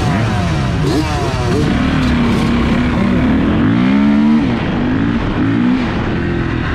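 Enduro dirt bike engine accelerating away, its pitch climbing and dropping back with each quick upshift in the first second or so. It then runs at a steadier speed, the throttle rising and easing.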